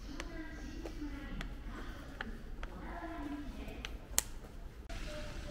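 A distant voice talking in short phrases over a low steady hum, with scattered faint clicks and one sharp click about four seconds in.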